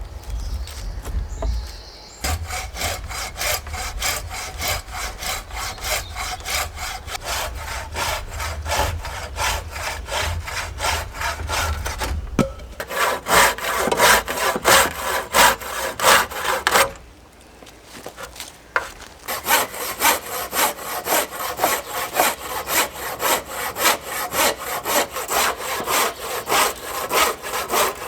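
Hand saw cutting through wood in fast, even back-and-forth strokes, stopping for a couple of seconds about two-thirds of the way through, then sawing on again.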